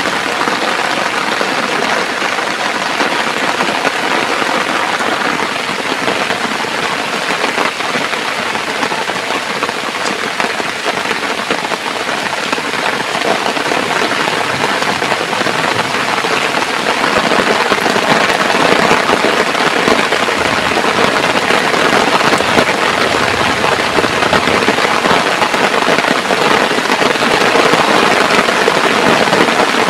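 Heavy rain falling steadily, a dense hiss that grows somewhat louder about halfway through.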